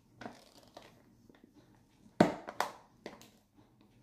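A few short knocks and scrapes of a utensil against a bowl as whipped cream is added to the mixture, the loudest a little over two seconds in.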